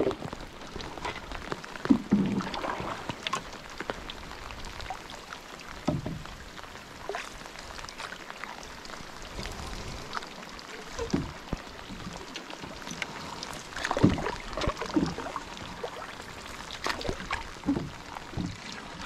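Rain falling on a lake's surface with a steady hiss, while a canoe paddle dips and splashes in strokes every few seconds.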